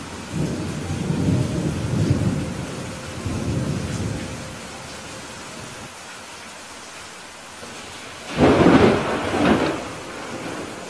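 Steady rain with thunder: a low rolling rumble over the first few seconds, then a sudden loud thunderclap about eight seconds in, with a second crack a second later.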